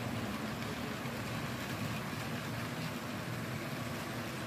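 Model trains running on the layout: a steady mix of motor whir and wheels rolling over the rails.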